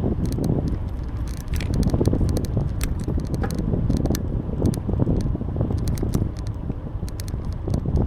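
Wind buffeting the microphone of a moving bicycle, a steady low rumble, with scattered light clicks and rattles from the bike throughout.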